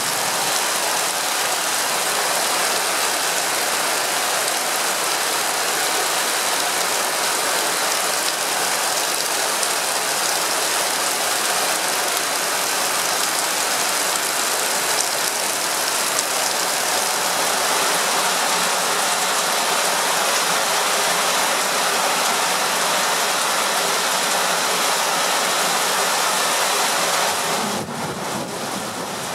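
Heavy rain pouring down, a steady dense hiss that drops a little quieter near the end.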